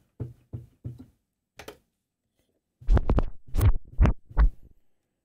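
Short back-and-forth scratch bursts of a track, played as the stiffened jog wheel of a Traktor Kontrol S4 MK3 DJ controller is jerked by hand. There are four or five quick bursts about three seconds in, with a few faint ones before them.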